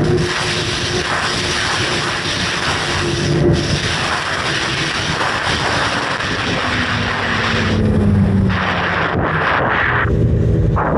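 Snowmobile running along a trail: a steady engine note under a loud rush of wind and track noise. About eight seconds in, the engine pitch falls, and near the end the rushing thins as the machine eases off.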